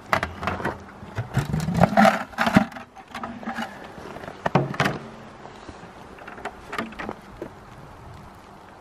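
Snap-on lid being pried off a plastic sap bucket with a quick run of sharp clicks, knocks and plastic creaks, and the bucket's wire handle clinking. The handling noise thins out after about five seconds.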